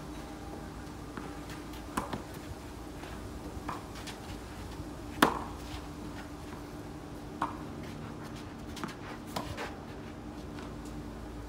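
Tennis rally on a clay court: sharp pops of the ball off the rackets and its bounces, about every one to two seconds, the loudest about five seconds in. A steady low hum runs underneath.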